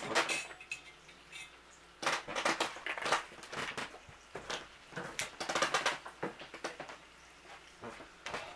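Irregular clattering and scraping of kitchen utensils and dishes, in several short flurries of clicks and scrapes with quieter gaps between.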